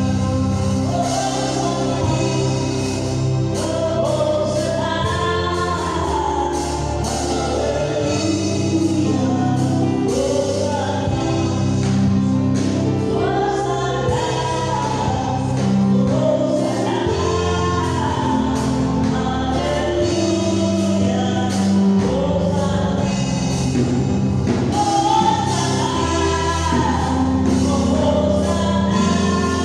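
Gospel music: group singing over steady bass notes and a regular percussion beat.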